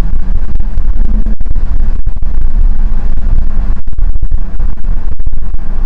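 BMW M235i's turbocharged inline-six, fitted with an aftermarket VRSF downpipe, running loud and steady with a low exhaust drone.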